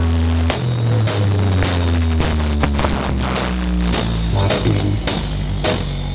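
Electronic music with heavy bass and a drum beat played loud through a large outdoor line-array sound system. A long held deep bass note breaks off about half a second in, and a beat with a falling bass line follows.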